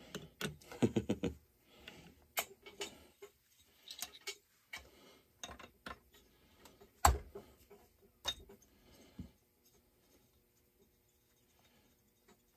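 Irregular small clicks and light knocks of parts and tools being handled on a chainsaw's engine, with one louder knock about seven seconds in, then only faint ticks.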